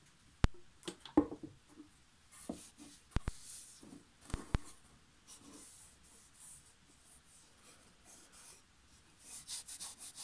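Cloth rag rubbing linseed oil into a wooden box in short strokes, with a quick run of rubs near the end. A few sharp knocks sound in the first half.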